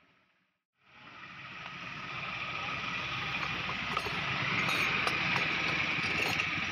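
Road traffic: a vehicle passing on the road, its noise swelling over a few seconds and then beginning to ease.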